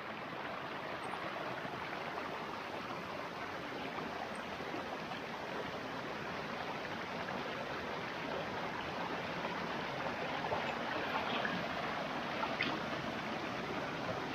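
Shallow stream running steadily over rocks, with a few faint clicks near the end.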